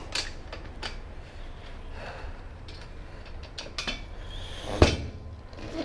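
Scattered light clicks and taps of tools and the wheel being handled, with one sharp knock near the end.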